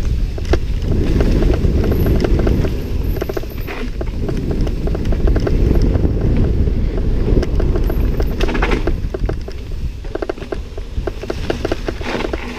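Mountain bike descending fast on a loose gravel track: wind buffets the microphone under a constant low rumble, while the tyres crunch over stones and the bike clatters over bumps. The clatter comes in louder bursts about two-thirds of the way in and again near the end.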